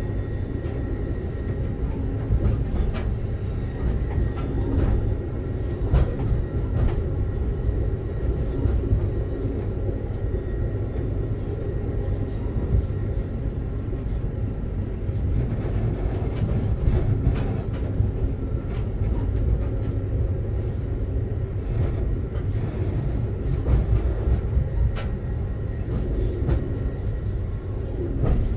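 Amtrak passenger train rolling along the track, heard from inside the coach: a steady low rumble of wheels on rails with scattered clicks and knocks.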